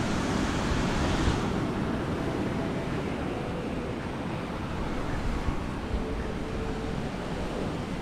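Surf washing on a sandy, rocky beach, a steady rush of waves, with low wind rumble on the microphone. A brighter hiss of breaking water eases about a second in.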